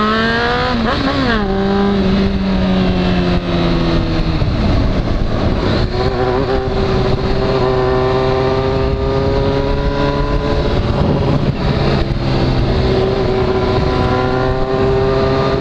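Honda CBR sport bike's engine pulling hard with its pitch climbing, dropping at a gear change about a second in, easing off around four seconds in, then pulling again and holding a steady cruising note, over constant wind noise on the helmet microphone.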